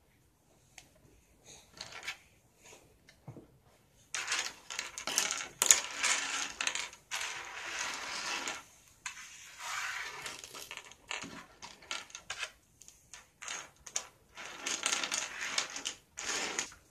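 Loose plastic toy-track pieces clattering and rattling on a wooden table as hands rummage through the pile, in several long runs of clicks after a few quieter seconds with only faint clicks.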